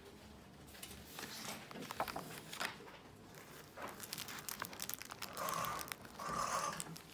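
Pages of a spiral-bound sketchbook being turned and handled: a string of short paper rustles and crinkles, with two longer, louder rustles near the end as pages flip over.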